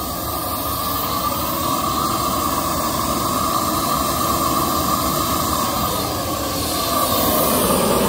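Propane torch burner running at full flame with a steady rushing sound, slightly louder near the end.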